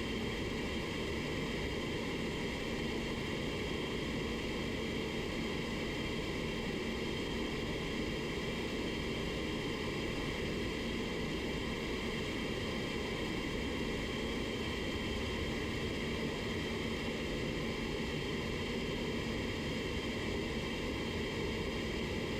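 Steady rushing air noise with a low steady hum, typical of a paint spray booth's ventilation running during clear coating.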